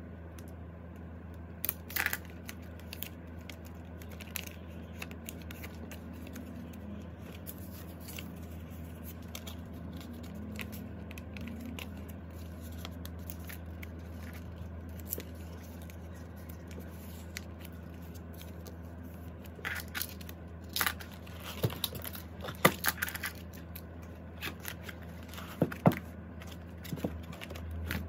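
Plastic card sleeves and binder pocket pages rustling and crinkling as photocards are handled and slid in, with scattered sharp clicks and taps that come thicker in the last several seconds, over a steady low hum.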